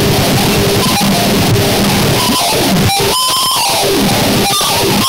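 Harsh noise music: a loud, dense wall of noise with pitch sweeps falling through it twice. About three seconds in there is a brief dropout, followed by a held high whine.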